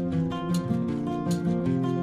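Background music carried by plucked acoustic guitar, a quick run of picked notes.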